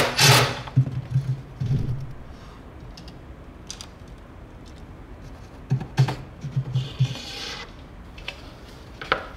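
Cordless drill/driver driving screws through a metal drawer slide into plywood, in short stop-start bursts: one run at the start and another about six seconds in, with a single click near the end.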